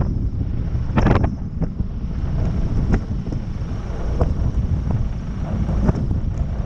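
Wind buffeting the microphone of a Pipistrel Virus SW 100 light aircraft as it taxis slowly on a grass airstrip, a steady low rumble under the aircraft's running engine. Several short knocks come through, the loudest about a second in.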